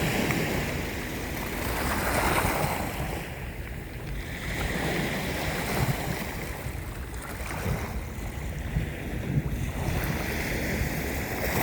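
Sea waves washing in and drawing back, the surf swelling and easing every few seconds, over a low rumble of wind on the microphone.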